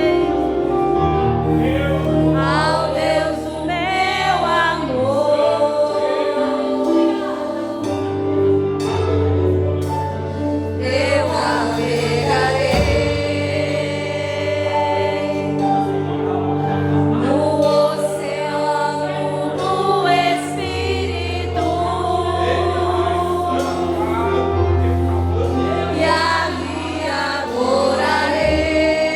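Church worship team singing a gospel worship song in several voices, with held bass notes from the accompaniment changing every few seconds.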